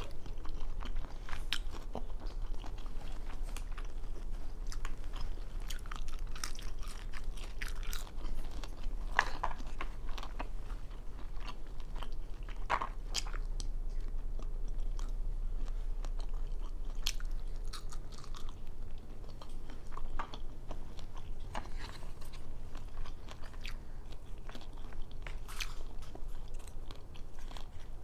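A person chewing crunchy shrimp tempura close to a clip-on microphone, with irregular crisp crunches through steady chewing.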